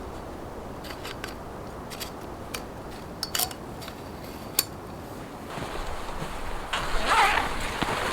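A few sharp clicks and taps, then louder crunching and scraping from about two thirds of the way in: handling noise while a tent is pitched in snow.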